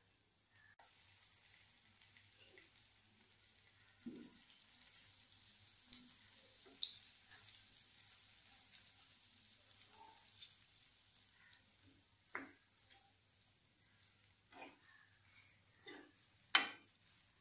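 Lemon pickle paste being stirred with a spoon into warm mustard-seed oil in a nonstick kadai. A faint sizzle runs for several seconds, with scattered scrapes and knocks of the spoon against the pan; the loudest knock comes near the end.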